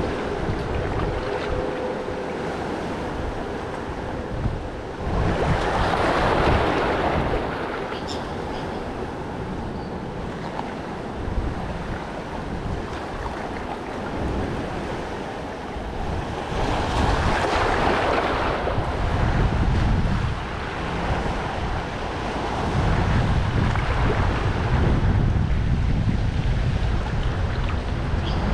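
Water washing in with wind buffeting the microphone; the wash swells up twice, and the low wind rumble strengthens near the end.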